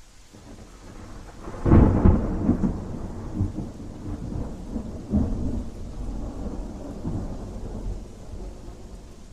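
A thunderclap over steady rain. A low rumble builds, breaks into a loud crack about a second and a half in, then rolls on in several weaker waves that fade away.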